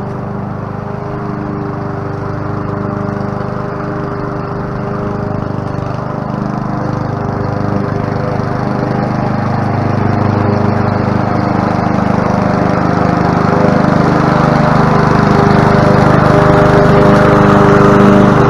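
Honda 21-inch commercial walk-behind mower's petrol engine running steadily while mowing, getting gradually louder through the second half.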